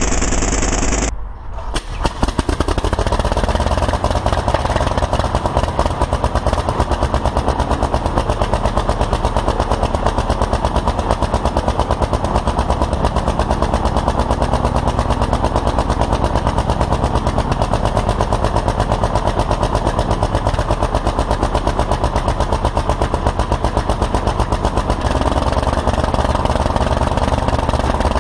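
Anzani three-cylinder W3 aero engine running, its firing a fast, even stream of sharp exhaust beats. The sound breaks off briefly about a second in, then carries on steadily.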